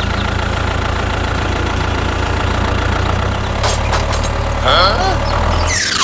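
Vehicle engine running steadily with a low, even rumble. About five seconds in there is a short squeaky chirping, and a quick falling whoosh comes at the very end.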